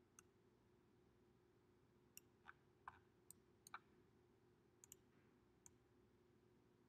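Faint computer mouse clicks, about ten short sharp clicks scattered irregularly over a few seconds, above a faint steady hum of room tone.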